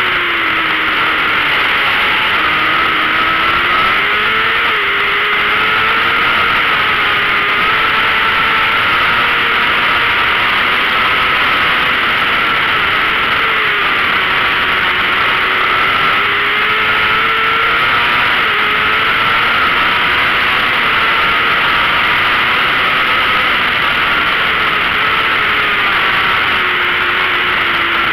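A 600cc race motorcycle's engine at speed, heard onboard, its revs rising and falling through the corners under a steady rush of wind noise.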